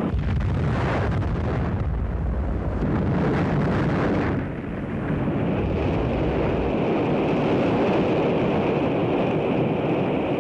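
A rocket exploding in flight: a sudden blast, then a long, steady rumble with a brief dip about halfway through.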